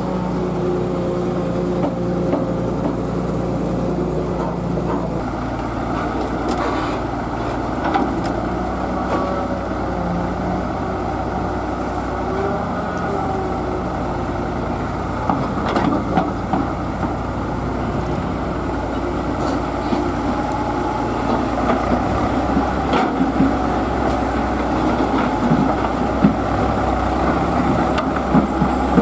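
Diesel engine of a Tata Hitachi EX200 LC excavator running steadily under working load, with scattered sharp knocks and clanks that come more often in the second half.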